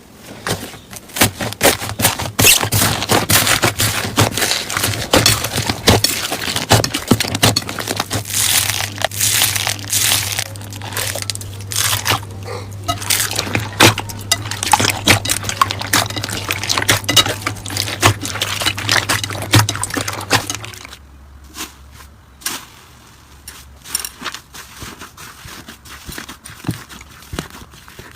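Slime being squeezed and kneaded by hand, giving dense crackling and popping over a low steady hum. About three quarters of the way through the hum stops and the crackles become sparser and quieter.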